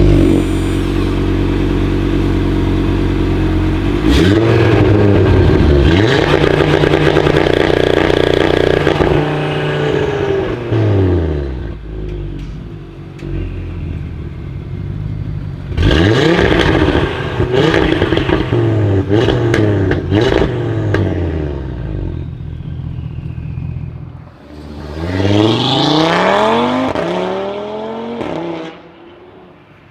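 Tuned Audi RS3 8V Sportback's turbocharged 2.5-litre five-cylinder, breathing through a Milltek downpipe with the secondary catalytic converter removed. It is held at steady revs for a few seconds, then pulls away hard through several quick upshifts with sharp cracks from the exhaust. It fades off, then makes a second hard pull through the gears and a final rising rev that dies away near the end.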